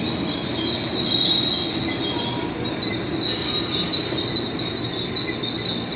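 GO Transit bilevel passenger cars rolling through the station, their steel wheels squealing on the rails in steady high-pitched tones over the rumble of the train, with a hiss joining about halfway through.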